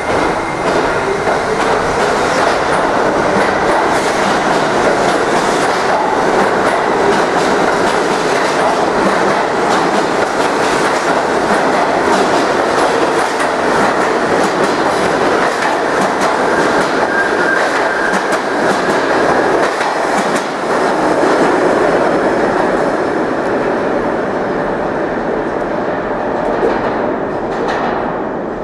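R68 subway train pulling out along the station platform and into the tunnel: steady rumbling wheel-on-rail noise with many sharp clacks, dying away over the last few seconds as the train leaves.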